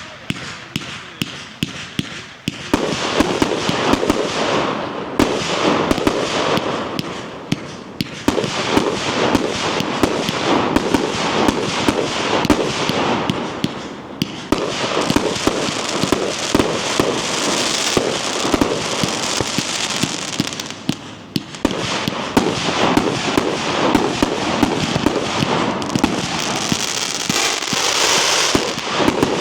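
Night Owl Grave Digger four-cake compound firework cake firing: a dense, rapid barrage of tube launches and sharp reports that comes in waves, easing briefly about every six seconds before the next section picks up.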